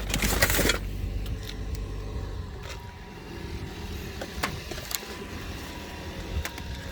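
A plastic ice scraper rasps across glazed ice on a car in one loud stroke at the start. Then an idling car engine hums low and steady under scattered small clicks and cracks of ice.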